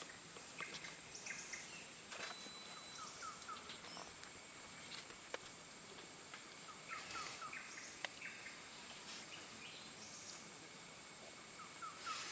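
Forest ambience: a steady high-pitched insect drone, with a bird giving a quick run of four short chirps about every four to five seconds and a few faint ticks.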